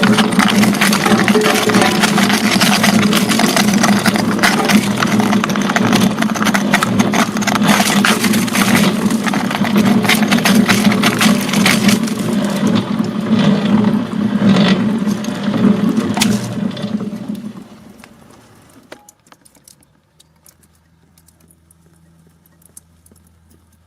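Crushing machine grinding ice cubes: a steady motor hum with dense rattling and cracking. It dies away about seventeen seconds in, leaving only faint sound.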